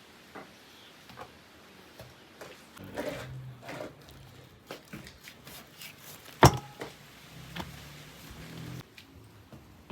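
A series of light knocks and clicks, with one loud, sharp knock about six and a half seconds in.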